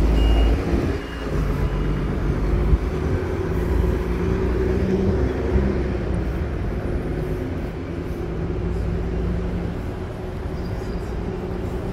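City street traffic: motor vehicle engines running, with a steady low rumble and hum.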